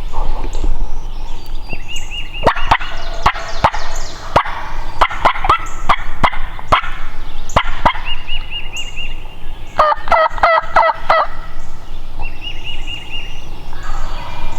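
Wild turkey gobbling: a fast rattling gobble about ten seconds in, with short runs of quick higher turkey notes at other points and several sharp clicks.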